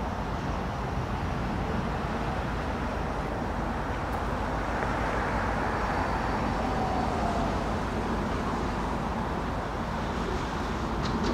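Steady road-traffic noise over a low steady rumble, with a car passing on the road beside the tracks around the middle.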